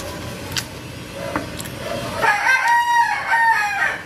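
A rooster crowing once, a single drawn-out call beginning a little over two seconds in and lasting nearly two seconds. It follows a few light clicks from eating at the plate.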